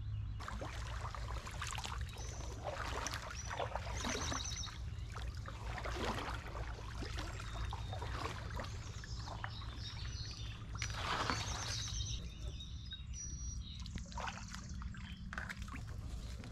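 Kayak paddle blades dipping into a slow, shallow creek, with water trickling and dripping off them. Birds chirp short high calls a couple of times, over a steady low rumble.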